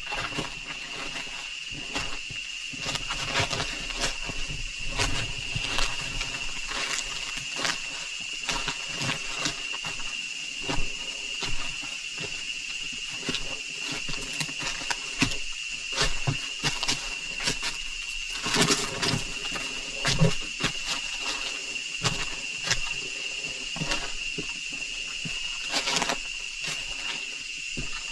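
Footsteps crunching irregularly on dry leaves and stones of a jungle trail, with a few louder crunches, over a steady high-pitched insect drone.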